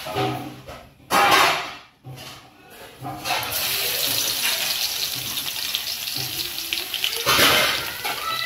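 Hot oil in an aluminium kadai sizzling steadily once small chopped pieces are dropped in, about three seconds in, with a louder swell of sizzling near the end. A brief loud rush comes about a second in, before the steady sizzle.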